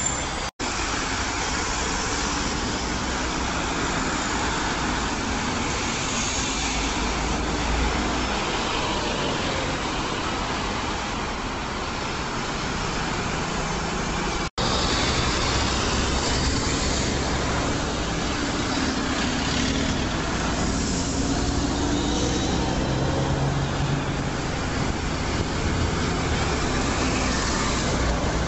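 Busy road traffic, with double-decker buses and cars passing and their engines and tyres running steadily. The sound cuts out for an instant twice, about half a second in and again about halfway through.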